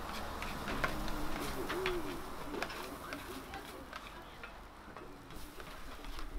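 Two spatulas scraping and clicking on a hot flat-top griddle as fried rice is stirred and tossed, over a steady sizzle. The clicks thin out and the sound eases after about four seconds.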